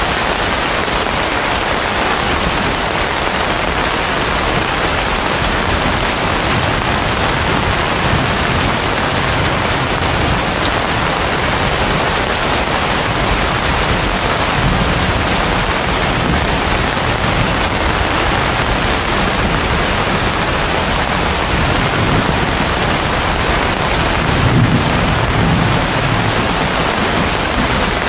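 Heavy rain falling steadily on banana and palm leaves: a loud, even hiss, with a brief low rumble near the end.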